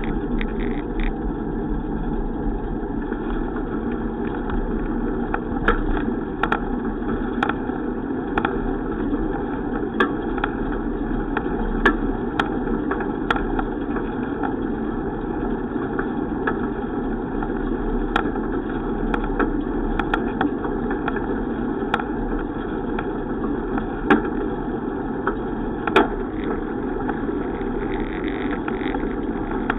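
Steady rushing road and wind noise of a bicycle ride, with sharp clicks and knocks scattered through it.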